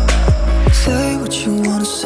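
Background music: deep sliding bass hits under sustained melodic notes, the bass dropping out about a second in.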